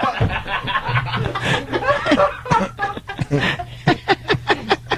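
Men laughing and chuckling after a joke. A steady low hum sits underneath from about a second in.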